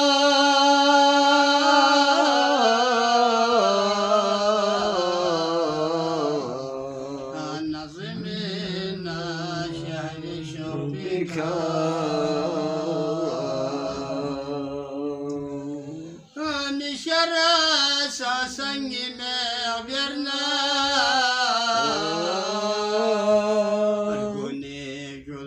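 A man singing a devotional qasida solo with no instruments, in long held notes that slide between pitches. He breaks off briefly for breath about sixteen seconds in.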